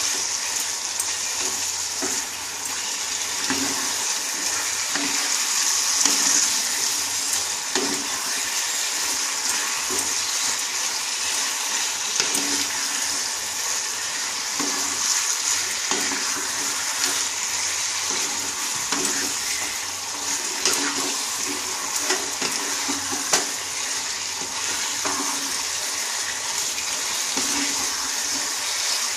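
Marinated chicken pieces sizzling as they are sautéed in masala in a non-stick kadai, with a wooden spatula scraping and turning them against the pan. A steady sizzling hiss is flecked with small scrapes, while the marinade's water is still cooking off.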